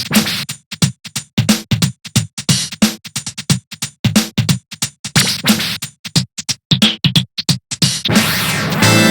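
A Samsung SGH-D227 ringtone playing on an MCP-MA7 phone: an electronic tune of short, rhythmic drum-machine-like stabs. About eight seconds in, it changes to a steadier, fuller melody of held tones.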